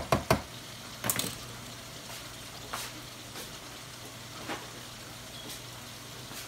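Ground meat sizzling steadily in an electric skillet, with a few faint pops. In the first second or so, a slotted spoon knocks sharply against the pan a few times.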